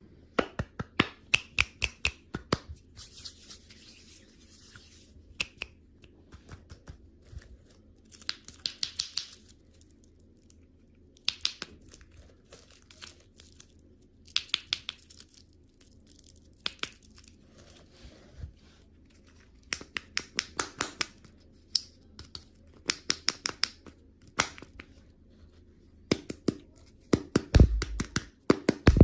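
Candy packaging being torn open and handled: repeated clusters of sharp crinkles and clicks with short pauses between them, loudest near the end.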